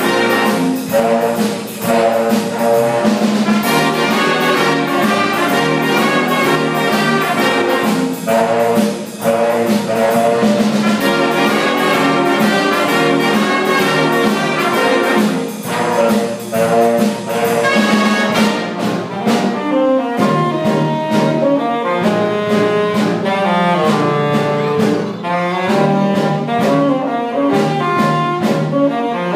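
Brass-led jazz band music with a steady beat: trumpets, trombones and saxophone playing together, thinning to more separate brass phrases about two-thirds of the way through.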